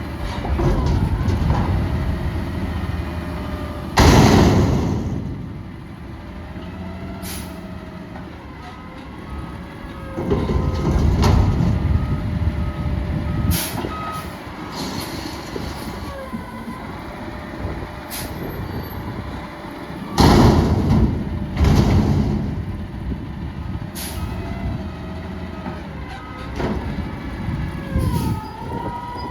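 Peterbilt 320 front-loader garbage truck working, its diesel engine running and revving in stretches. Sharp air hisses sound about four seconds in and twice around twenty seconds. A back-up alarm beeps steadily in two stretches, and high squeals glide up and down.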